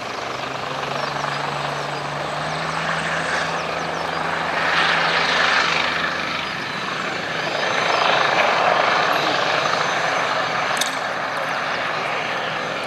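Twin-engined Airbus Helicopters EC 145 T2 in flight: a steady rotor and turbine sound from its main rotor and Fenestron ducted tail rotor, swelling in loudness twice as it moves across.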